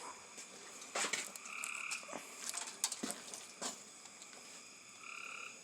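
Scattered light clicks and scrapes from working old gasket material and RTV off an engine's thermostat-housing mating surface. Two short, steady two-pitched calls sound in the background, one about a second and a half in and one near the end.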